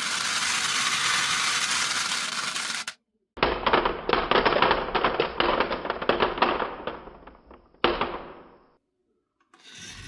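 Marbles on a wooden marble run: first a steady, dense rattling rush of many marbles rolling, then after a short break a sudden burst of marbles clattering and clicking against each other that dies away, with a second, smaller clattering burst near the end.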